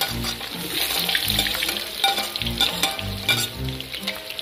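Curry mango ingredients frying and sizzling in hot oil in a cooking pot as they are stirred, with a few sharp clicks of the spoon against the pot.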